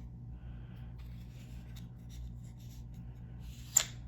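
Lansky Turnbox sharpener and its ceramic rods being handled as the rods are fitted and the box turned: soft scraping and rubbing, with one sharp click near the end.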